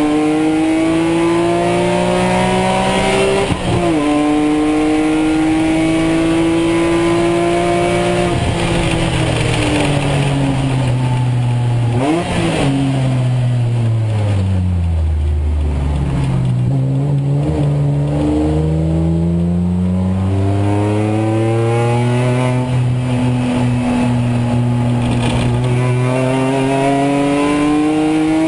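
BMW Z4 M Coupe race car's 3.2-litre straight-six heard from inside the cockpit. It revs up through the gears with two upshifts in the first nine seconds, then the revs fall over a few seconds with a throttle blip as it brakes and downshifts, before the engine pulls steadily back up under full throttle.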